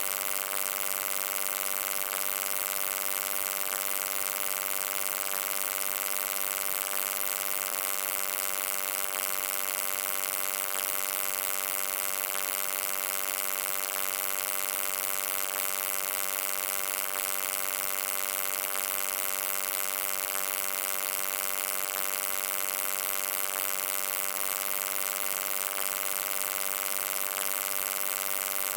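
Electric hum: a steady buzzing drone of many closely spaced tones with a hiss over it, unchanging throughout.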